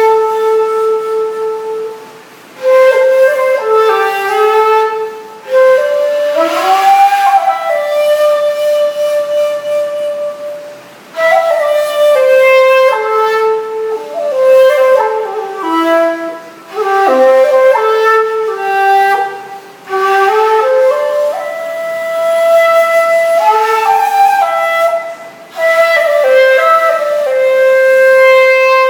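Wensong-made Taiwanese Tang shakuhachi, an end-blown bamboo flute, playing a slow solo melody in phrases, with short breath pauses between them and some notes sliding in pitch.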